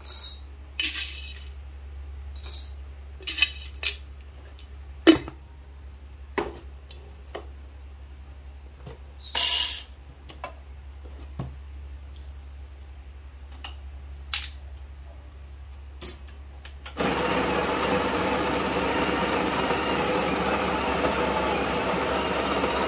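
Scattered clicks, knocks and rattles of coffee gear being handled on a counter, then about seventeen seconds in a Breville espresso machine starts with a loud, steady mechanical whir.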